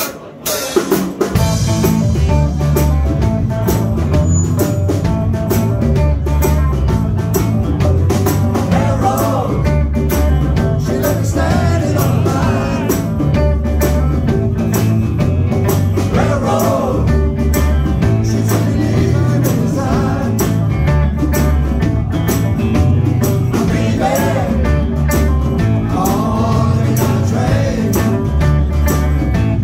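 Live rock band starting up about a second in: electric guitar over drums with a steady beat and a heavy low end, played loud in a small club.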